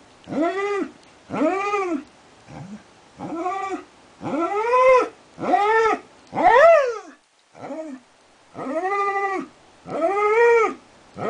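Border collie howling in a string of short howls, each rising and falling in pitch, about one a second. One past the middle climbs higher and louder than the rest.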